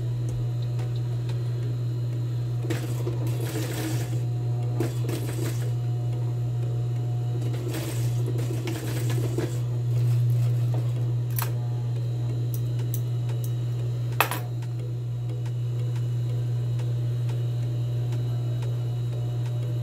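Industrial sewing machine with its motor humming steadily, broken by short bursts of noise from stitching and handling the fabric while an invisible zipper is sewn in; a sharp click about fourteen seconds in.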